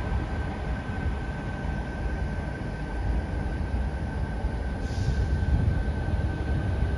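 Bombardier Innovia APM 100 rubber-tyred light-rail train pulling away along its elevated concrete guideway: a steady low rumble with a steady high tone over it, and a short hiss about five seconds in.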